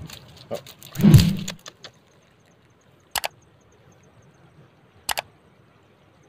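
Handling knocks: a heavy thump about a second in, then two short sharp clicks about two seconds apart.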